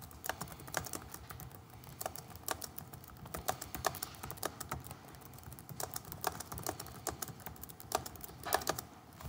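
Typing on a computer keyboard: a quick, irregular run of key clicks as a sentence is typed out.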